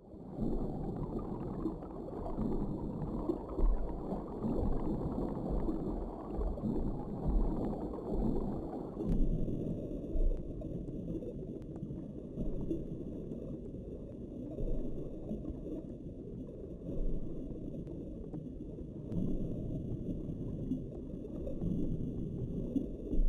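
Muffled underwater water noise picked up by a camera beneath the surface: a low, dull rush with uneven swells and a faint steady high whine above it. The sound changes abruptly about nine seconds in and again near the end, where the shots cut.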